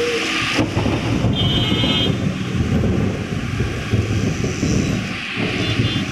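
Heavy rainstorm: rain hissing over a deep, uneven rumble. A short high electronic beeping tone sounds about a second and a half in.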